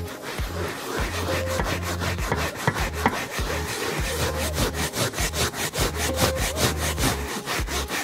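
Stiff-bristled hand brush scrubbing a fabric seat cushion in quick, rhythmic back-and-forth strokes, working in upholstery cleaner. Background music with a steady bass beat runs underneath.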